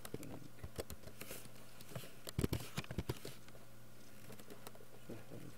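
Computer keyboard typing: quick runs of keystroke clicks, fewer toward the end, over a steady low hum.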